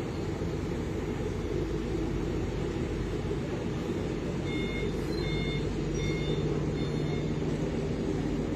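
Steady low drone of a boat's diesel engines running. About halfway through, four short electronic beeps sound, evenly spaced a little under a second apart, like a reversing alarm.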